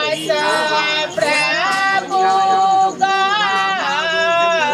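A high-pitched voice singing a slow melody in long held, gently wavering notes, with brief breaths between phrases.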